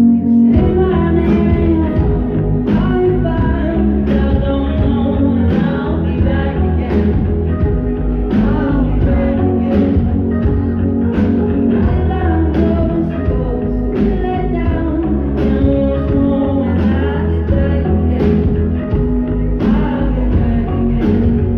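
Live band playing a song, with a singer's voice over guitar, bass and a steady drumbeat. Recorded from the audience, so the bass is heavy.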